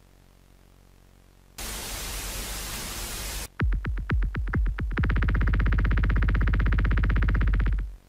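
Radio tuning sound effect: a burst of static about one and a half seconds in, then a quick run of short chirping sweeps, then a steady low buzzing tone that cuts off just before the end.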